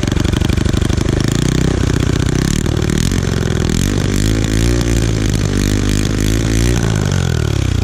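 Small gasoline engine of a go-kart-style build running hard, the revs rising and falling, then winding down near the end.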